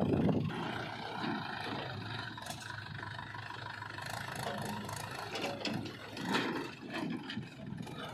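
Diesel engine of earthmoving machinery running steadily, louder for a moment at the start and swelling briefly about six seconds in.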